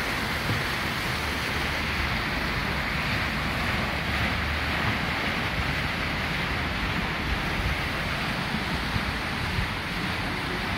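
Water from a stepped fountain cascade rushing steadily down stone steps.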